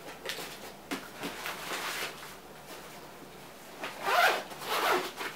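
Fabric backpack being zipped closed: short rasping zipper pulls and rustling of its nylon fabric, the loudest pull about four seconds in.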